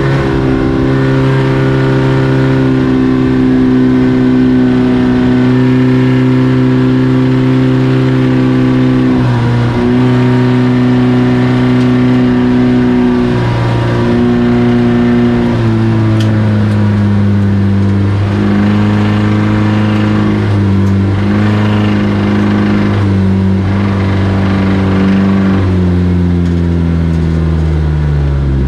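Race car engines running hard at high revs. The pitch dips briefly a few times and comes back up, then falls steadily near the end as the cars slow.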